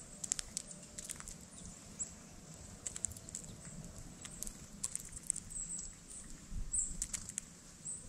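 Red-bellied woodpecker pecking through birdseed on a mesh platform feeder: scattered, irregular light clicks and rustles of seed.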